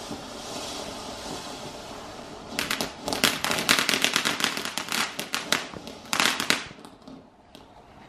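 Ground fountain firework hissing as it sprays sparks, then a fast run of sharp crackling bangs for about four seconds before it dies down.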